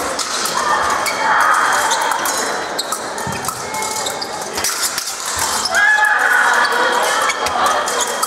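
Fencers' feet stamping and sliding on the piste during a bout, with sharp clicks and knocks, over the echoing background noise of a large sports hall.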